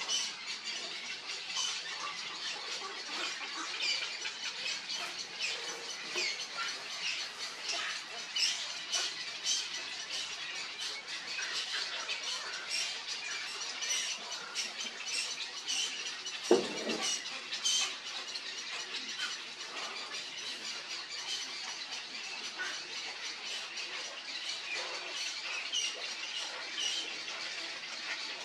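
Black-crowned night heron chicks begging at the nest with a rapid run of short, high squeaky calls, as the adult brings food. One brief low sound stands out a little past halfway.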